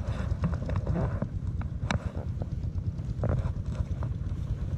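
Wind buffeting the microphone, with a few short clicks from handling the fishing tackle.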